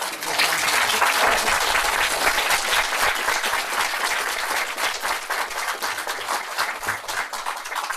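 Audience applauding, a dense, sustained round of clapping that thins slightly near the end.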